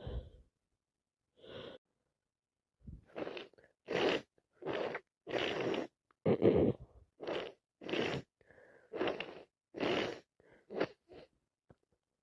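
A woman with a head cold in a sneezing fit: a quick run of about a dozen short, noisy gasps and sneezes, the loudest about six and a half seconds in.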